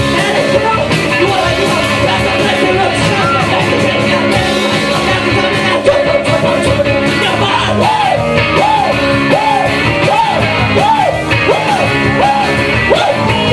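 Live rock band playing loudly, with electric guitar and a singer yelling into a microphone. In the second half a run of short swooping notes repeats about twice a second.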